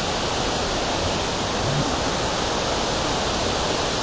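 Hinulugang Taktak waterfall falling, a steady, dense rush of water.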